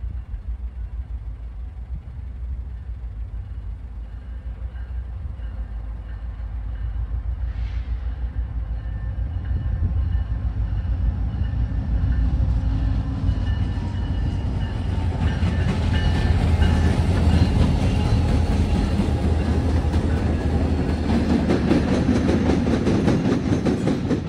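CSX local freight train rolling past: a steady low rumble of locomotive and wheels on rail that grows louder through the first half, stays loud, then cuts off suddenly at the end.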